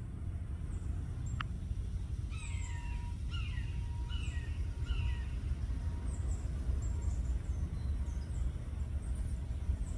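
Outdoor ambience with a steady low rumble. A bird gives four harsh, falling calls between about two and five seconds in, and faint high chirps follow in the second half.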